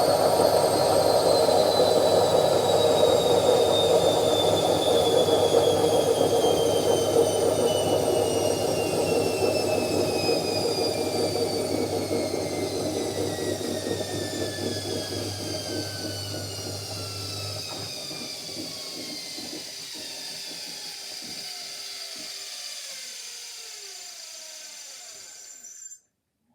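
Washing machine spin cycle winding down: the motor's whine falls steadily in pitch and the sound fades as the drum slows. A low hum stops about two-thirds of the way through, and the sound cuts off abruptly just before the end.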